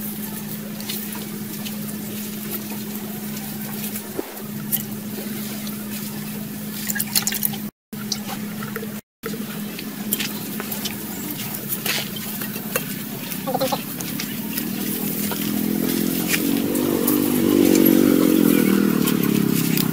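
Hands scraping and pressing dry sandy soil, with scattered small crackles and taps, over a steady low hum. In the second half a low rumble swells louder, peaking shortly before the end.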